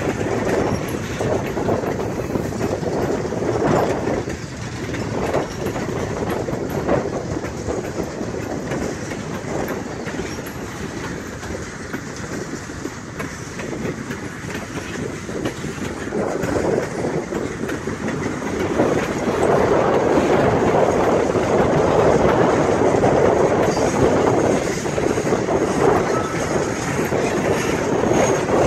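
Freight train cars rolling past on steel wheels, a steady rumble with wheels clicking over rail joints, growing louder about two-thirds of the way through.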